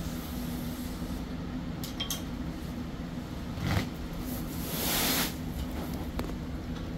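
Fiberglass ductboard being trimmed and handled: a few light clicks and a short scrape, then a longer, louder scrape about five seconds in as the board is lifted off the concrete floor. A steady low hum runs underneath.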